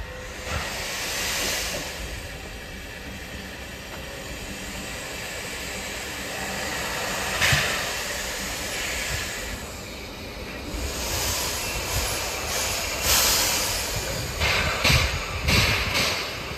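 Shay geared steam locomotive moving slowly up to a log car to couple, with steam hissing in swells. There is one sharp loud burst about halfway through and a run of loud sharp bursts near the end, the loudest sounds here.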